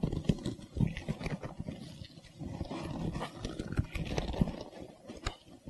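Leather seat cover being stretched over a car seat-bottom frame and hooked on: rustling and creaking of the cover with scattered clicks and knocks as its edge strip is clipped onto the frame.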